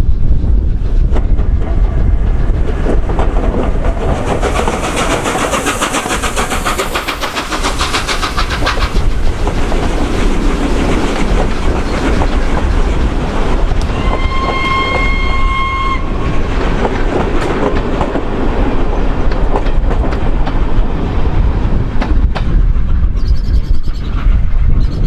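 Steam-hauled train passing below at speed, LNER Peppercorn A1 Pacific 60163 Tornado at its head. There is a fast, rapid rush of exhaust and steam as the engine goes by early on, then steady rumbling and clickety-clack of the coaches' wheels over the rail joints. A single-note whistle sounds for about two seconds midway.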